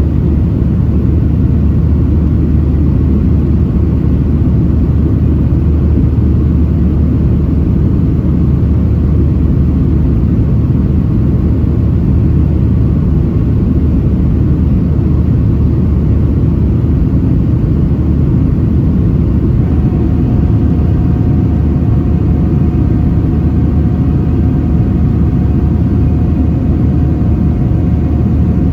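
Steady low rumble of a Boeing 737-700's CFM56 jet engines and airflow, heard inside the cabin. A faint steady engine tone joins about two-thirds of the way through.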